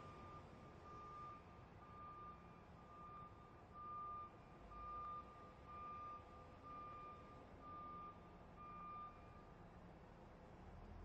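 Truck reversing alarm beeping, faint, on one pitch about once a second, stopping near the end.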